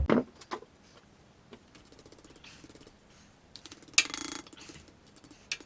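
Metal wood-stove parts being handled: a few sharp clicks and knocks, then a brief rattling scrape about four seconds in.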